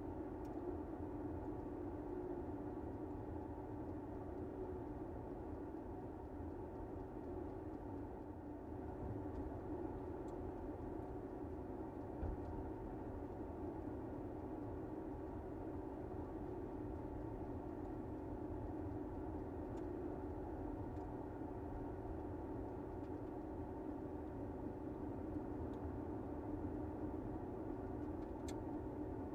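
Steady road and tyre noise of a car driving at an even speed, a constant low rumble and hum with a few faint ticks.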